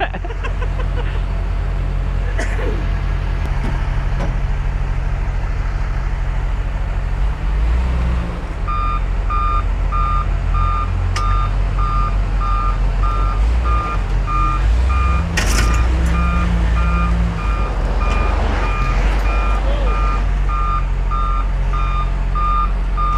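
John Deere 544K wheel loader's diesel engine running and working harder under load as it backs up, dragging an overturned tractor out of a ditch by a chain. Its reversing alarm starts beeping about nine seconds in, roughly two beeps a second, and there is one sharp knock about fifteen seconds in.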